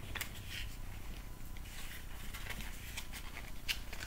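Light rustling and small clicks of plastic and cardboard product packaging being handled and lifted out of a box, with a sharper click near the end.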